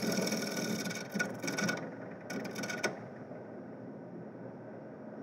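A turning tool cutting a spinning walnut blank on a wood lathe, a scraping hiss that comes in bursts over the first three seconds. After that only the lathe is heard, running quietly.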